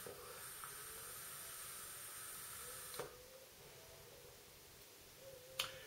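Faint steady hiss of vaping on a Smok Xpro M50 box mod, cutting off sharply with a small click about three seconds in.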